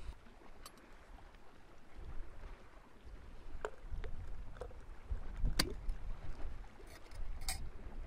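Low wind rumble with scattered light clicks and knocks as a glass clip-top jar is handled, its wire clasp flipped open and its lid lifted; the sharpest click comes about halfway through.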